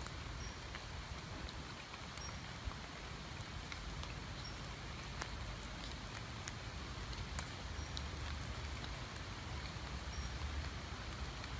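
Steady rain falling, an even hiss with scattered sharp drips. A short, faint high chirp comes now and then.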